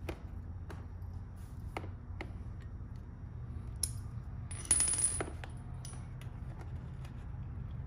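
Small metal fasteners and fittings clinking as they are handled: a few light clicks, then a brief cluster of clinks with a high metallic ring about five seconds in, over a steady low background hum.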